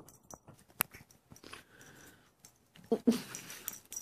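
Pomeranian-Chihuahua puppy mouthing and licking at close range: scattered wet clicks and smacks, then louder snuffling and a short burst of sound about three seconds in.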